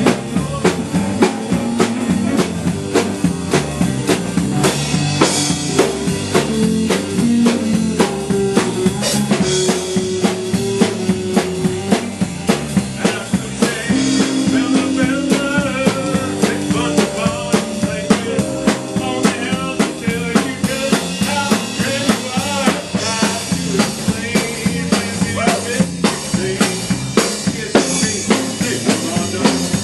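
Background music with a steady drum-kit beat and held melody notes over it.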